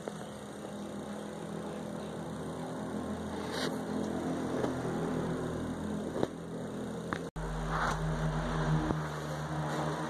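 A steady low mechanical hum that shifts in pitch twice, with a few faint clicks.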